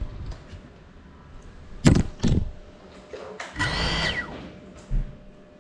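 Cinewhoop FPV drone crashing: two sharp knocks about two seconds in as it hits and tumbles, then a brief high whine of its motors and propellers that winds down in pitch, and one more knock near the end.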